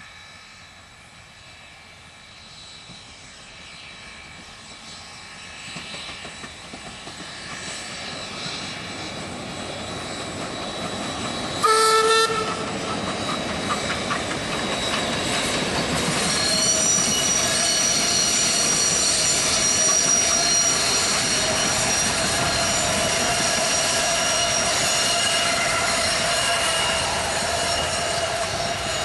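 Steam train of ex-Queensland Railways PB15 class locomotive 448 approaching and growing steadily louder, with one short whistle blast about twelve seconds in. From about sixteen seconds a steady squeal of several high tones runs on as the train passes.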